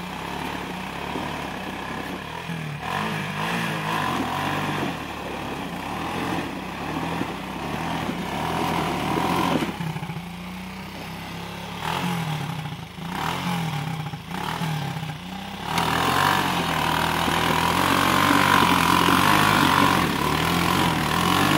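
Cobra 200 ATV engine running, its revs rising and falling, with a quieter stretch in the middle and louder running over the last few seconds.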